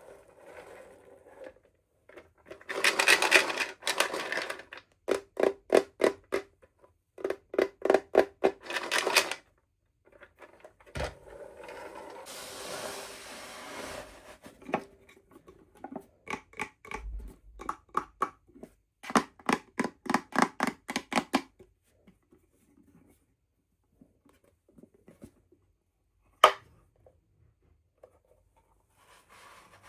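Hands unboxing small toy packaging: several bursts of rapid scratchy ticking and rubbing, each a second or two long, a steady rustling stretch midway, and one sharp click about three-quarters of the way through.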